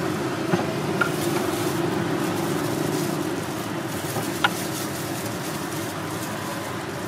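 Steady hum of street traffic, with a few short clicks about half a second, one second and four and a half seconds in.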